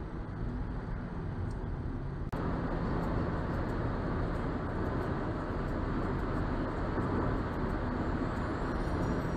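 Steady road and engine noise of a car driving on the freeway, heard from inside the cabin. A brief click and dropout about two seconds in, after which the road noise is a little louder.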